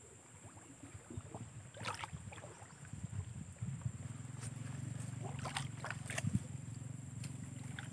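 Legs wading through shallow swamp water: irregular sloshes and splashes. A low steady rumble sets in a little before halfway.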